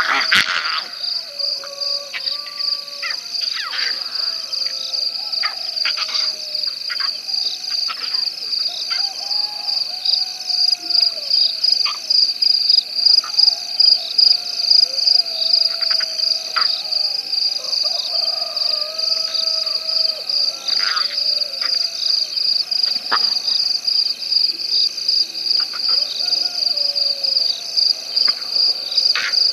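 Night chorus of insects: a steady, high-pitched pulsing trill. Lower wavering frog calls and scattered sharp clicks run beneath it.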